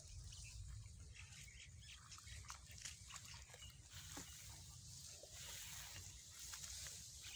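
Near silence: faint outdoor ambience with a steady low wind rumble on the microphone and scattered faint short chirps.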